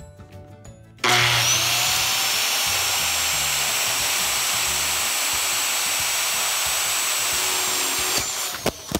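Circular saw starts about a second in, its whine climbing to full speed, and runs steadily while cutting through a PVC siding board. Near the end it is released and winds down with a falling whine.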